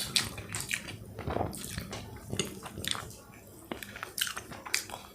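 A person chewing food close to the microphone, with irregular wet mouth smacks and squishes.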